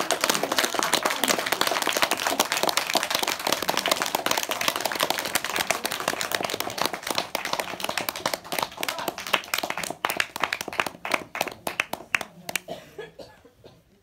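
Audience applauding. The applause thins to scattered separate claps over the last few seconds and dies away.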